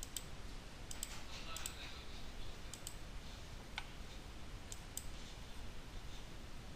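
Computer mouse clicks, about ten short sharp clicks spread unevenly, some in quick pairs, over faint room hiss.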